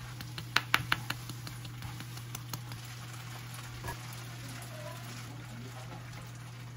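Plastic shaker of dried parsley flakes shaken and tapped over food: a quick series of sharp clicks about a second in, then a few fainter ticks, over a steady low hum.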